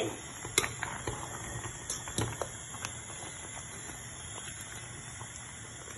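Metal spoon stirring thick ogbono soup in a stainless steel pot, with a few light clinks of the spoon against the pot, most of them in the first three seconds, over a steady low hiss.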